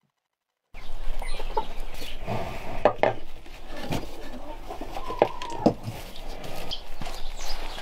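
Chickens clucking: a run of short clucks and calls that starts just under a second in.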